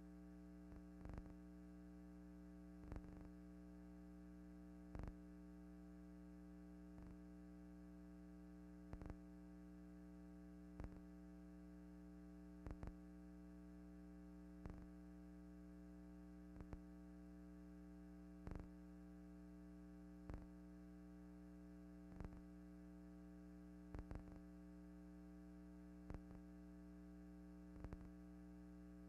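Near silence: a steady low electrical hum with a faint click about every two seconds.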